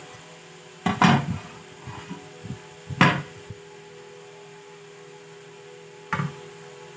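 Parts of an old motor starter being handled on a bench: three sharp knocks, about a second in, at three seconds and near the end, with light clatter between them. A steady hum runs underneath.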